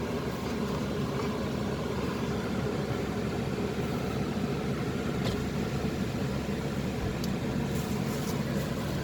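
Steady drone of a car's engine and tyres on the road, heard from inside the moving car.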